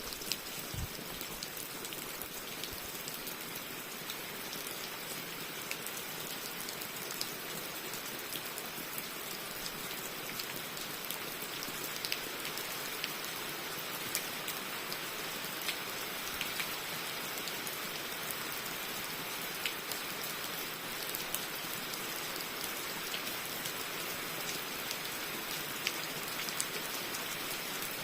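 Steady rain falling, a continuous hiss with many scattered sharp drop ticks on top.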